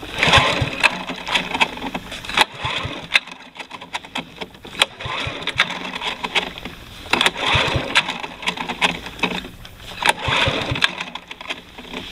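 Honda HRM215 Harmony lawn mower being pull-started cold with the choke on: repeated yanks of the recoil starter crank the single-cylinder engine over, each pull a short burst of rasping cord and turning-over chuffs, but the engine does not catch.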